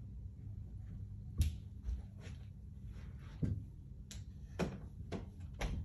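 Scattered knocks and clicks of small objects being handled and set down, about six over a few seconds, over a low steady hum of room noise.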